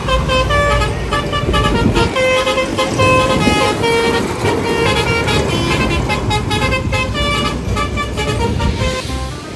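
Basuri "telolet" multi-tone bus horn playing a quick melody of short notes that step up and down in pitch, over a low engine rumble.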